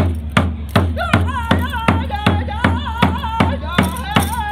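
Native American drum music: a steady drum beat, a little under three strokes a second, joined about a second in by a high, wavering melody.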